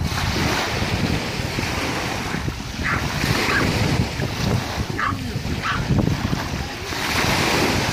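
Small sea waves lapping and washing up on a sandy beach, with wind buffeting the microphone. The wash swells a little about three seconds in and again near the end.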